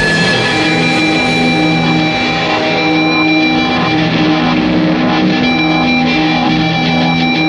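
Shoegaze rock music: dense, steady electric guitars with a repeating low melodic figure, no vocals.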